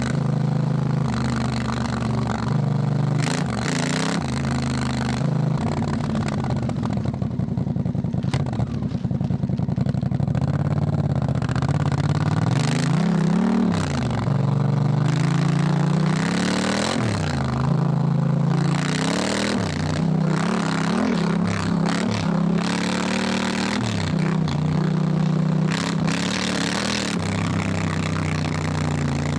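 Honda Africa Twin's parallel-twin engine under way, its pitch rising and falling again and again as the rider opens and closes the throttle and changes gear, over a rushing noise of wind and tyres.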